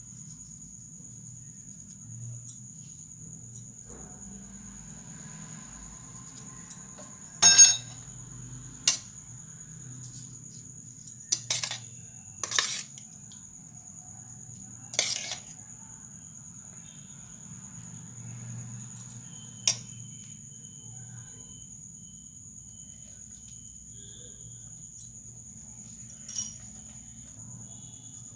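A steel spoon clinking against a steel serving bowl of dal as it is stirred and served, about seven sharp clinks spread out, the loudest about seven seconds in. A steady high-pitched whine and a low hum run underneath.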